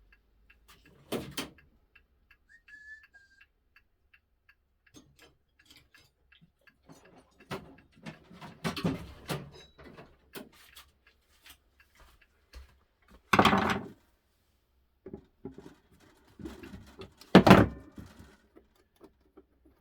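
Handling noises from a Seiko Time-Dater clock being taken apart by hand: scattered clicks and knocks, with two louder clatters about thirteen and seventeen seconds in. A faint run of small, quick, evenly spaced ticks sounds between about two and seven seconds in.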